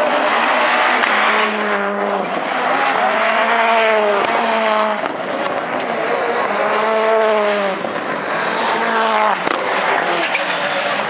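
Rallycross Supercars' turbocharged engines running hard as the cars race past, the engine pitch rising and falling again several times with short breaks between.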